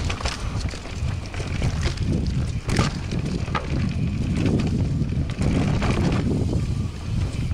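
Wind buffeting the microphone as a mountain bike rolls fast down a dirt trail, with tyre noise and short sharp clicks and rattles from the bike over bumps, the sharpest a little under three seconds in.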